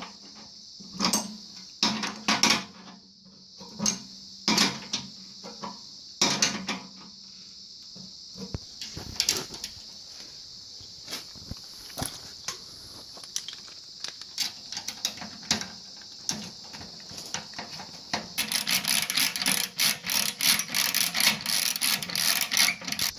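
Metal parts of a furnace blower being handled and fitted: scattered clicks, knocks and scrapes over a steady high hiss, turning into a dense run of rapid clicking and rattling about eighteen seconds in.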